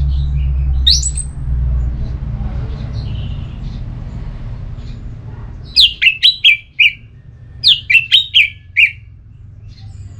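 Orange-headed thrush singing in its loud, open 'ngeplong' style: a single rising whistle about a second in, then two short phrases of quick, clear whistled notes that step downward, near the middle and again a little later. A low rumble underlies the first few seconds.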